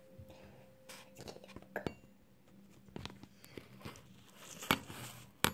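Handling noise from fingers touching and rubbing the recording phone close to its microphone: scattered taps, scrapes and crackles, with two sharper knocks near the end.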